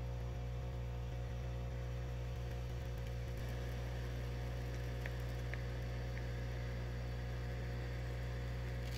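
Handheld heat gun running steadily, a low electric hum with an even airy hiss, blowing hot air onto a phone battery to soften the adhesive beneath it.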